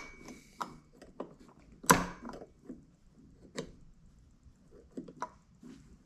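Scattered clicks and knocks as parts of a disassembled Makita DCS6401 chainsaw are handled, with the loudest knock about two seconds in.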